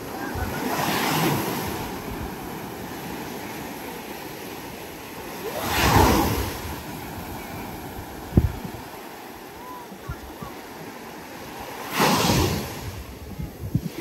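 Sea waves breaking on the beach, one swelling surge about every six seconds over a steady wash of surf, with wind buffeting the microphone and one short thump a little past the middle.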